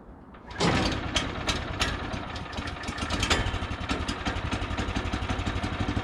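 Small gas engine of a Woodland Mills HM122 bandsaw mill pull-started, catching on the first pull about half a second in and then running steadily with a fast, even pulse.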